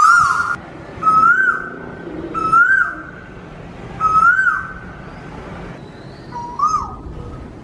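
A bird repeating a clear whistled call about five times, each a held note that swoops up and drops away, over steady background noise.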